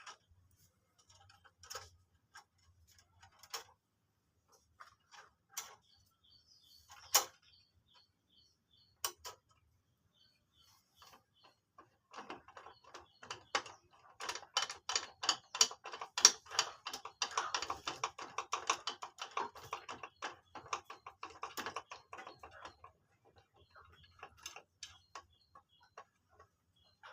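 Clicks and knocks of metal parts and tools handled during a bandsaw blade change, with one louder knock. About twelve seconds in comes a long run of rapid clicking and rattling lasting around ten seconds, then scattered clicks again.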